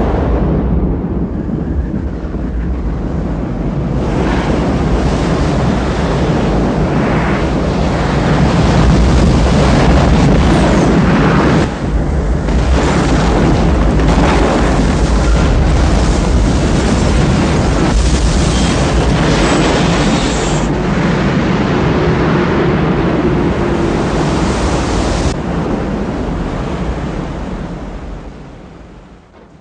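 Film sound effects of a giant tsunami wave: a continuous heavy rush of churning water with a deep rumble, fading out over the last few seconds.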